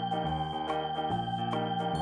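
Background music: an organ-style keyboard track with held chords over a bass line that changes note about every half second.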